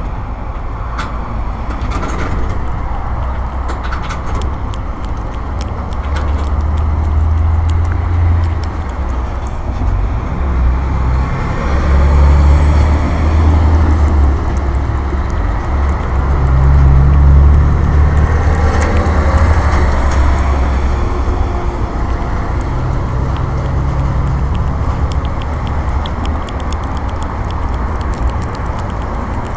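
Street cat eating wet food from a glass bowl, close to the microphone: chewing and lapping with many small clicks of teeth against food and bowl. Under it a loud low rumble swells and fades several times.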